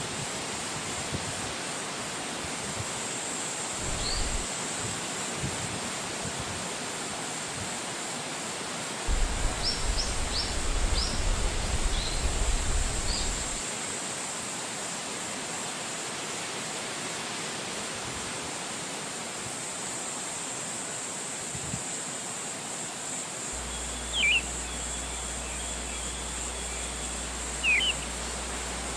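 Steady rainfall making an even hiss. A few short, high chirps come through it, and a low rumble swells for a few seconds about a third of the way in.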